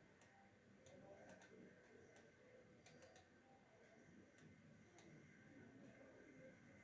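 Near silence broken by about ten faint, irregular computer mouse clicks.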